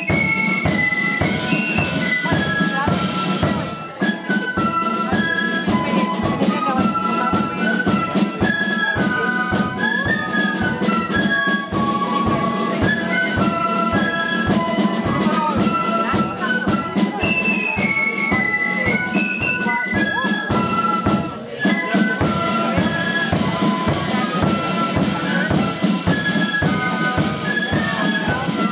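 A flute band playing live: small keyed flutes carry a high, quick melody over steady snare and bass drum strokes. The playing dips briefly about four seconds in and again near twenty-one seconds.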